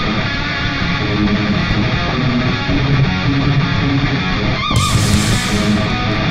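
Rock music soundtrack with electric guitar.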